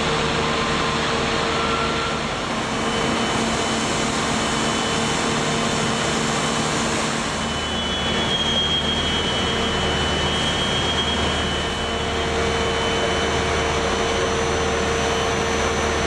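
Steady, loud factory machinery noise in a forge shop handling red-hot steel: an even rushing din with a faint steady hum, running unbroken.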